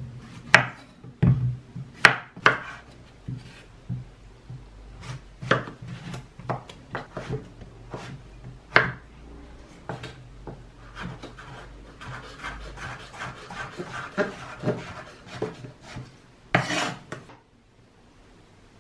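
Chef's knife cutting courgette on a wooden cutting board: irregular knocks of the blade through the vegetable onto the board, then a quicker run of chops while dicing. A longer scraping sound comes near the end.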